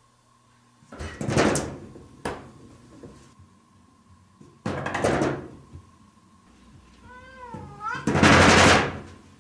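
A cat banging and rattling a wooden-framed sliding glass door three times, each rattle lasting up to a second, the last the loudest. A short meow comes just before the last rattle.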